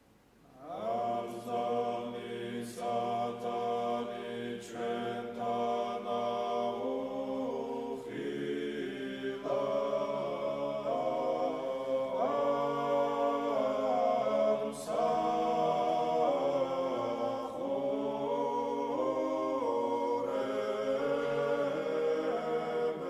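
Male choir singing Georgian chant a cappella in several parts, the voices holding chords that change together; the singing begins about half a second in.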